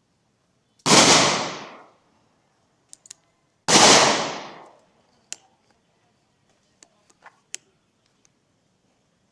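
Two gunshots about three seconds apart, each echoing out over about a second, followed by a scatter of faint clicks and ticks.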